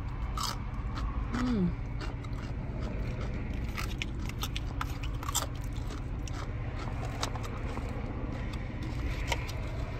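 Close-up chewing and crunching of food, with scattered short clicks, over a steady low hum.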